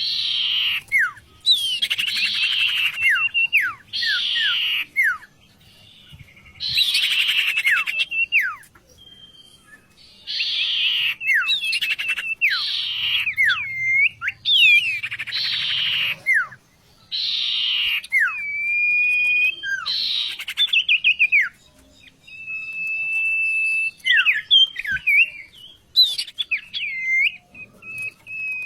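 A sirtu songbird singing: loud, scratchy bursts of song about once a second, each laced with sharp downward-sliding whistles. In the second half the phrases thin out into longer, level whistled notes and quick twisting calls.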